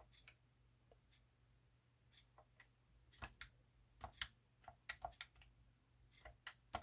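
Keys on a Verifone Tranz 330 card terminal's rubber-coated keypad being pressed: faint clicks, a few at first, then a quicker run of about a dozen from about three seconds in.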